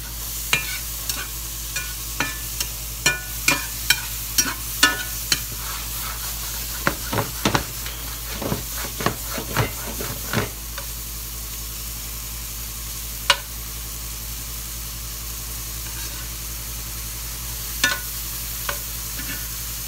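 Sliced mushrooms sizzling in butter in a hot cast iron skillet, with a spatula clacking and scraping against the pan as they are stirred. The strokes come thick and fast for the first half, then only a few single clicks over a steady sizzle.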